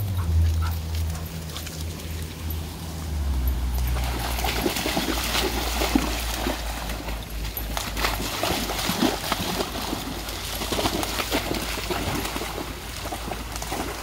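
A dog running and splashing through a shallow, fast-flowing creek after heavy rain. The splashing starts about four seconds in and goes on as a quick, uneven run of sloshes and spatters over the rush of the water.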